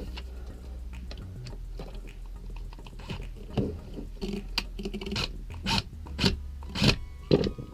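Irregular clicks and scrapes of small metal and plastic parts being handled and worked by hand, starting about three seconds in, over a low steady hum.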